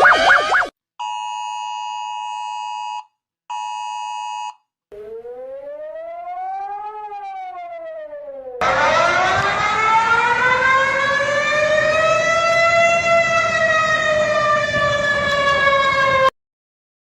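A run of emergency alert sounds. A fast warbling tone ends in the first second. Then a steady two-tone alert sounds twice, for about two seconds and then about one. A fainter siren follows, gliding up and back down, and then a louder siren slowly rises and falls for about eight seconds before cutting off suddenly.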